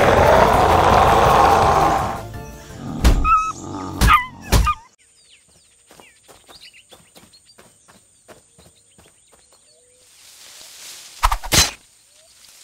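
Cartoon sound effects over music: a loud wavering cry, then a few heavy thuds about three to four and a half seconds in. Then a long quiet stretch with faint chirps and clicks, and two more heavy thuds near the end.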